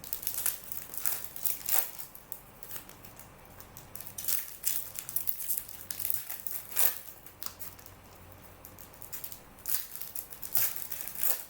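Crinkling and rustling of plastic wrapping as trading-card boxes and packs are handled, in irregular sharp crackles with a few louder bursts.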